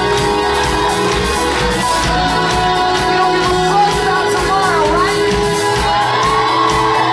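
Live pop-rock band playing: electric guitars and drums, with a male lead voice singing into a microphone.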